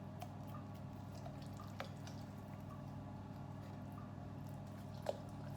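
A few soft clicks and taps from hands and a shaker while salt and pepper are sprinkled over a raw whole chicken, over a steady low hum.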